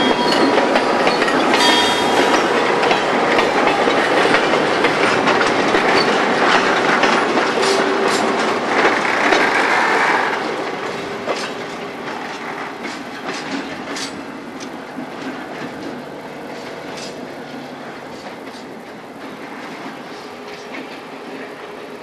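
Diesel switcher locomotive and its train rolling slowly past close by, wheels clicking over the rail joints with a few brief squeals. The sound fades from about ten seconds in as the train moves away.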